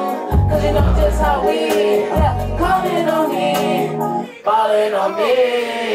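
Live hip-hop song: a sung, gliding vocal melody over a beat with deep bass notes. The music briefly dips about four seconds in, then comes back.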